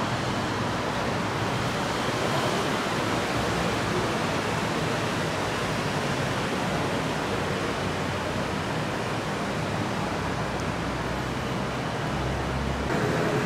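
Steady rushing ambient noise with no distinct events, and a low rumble that swells near the end.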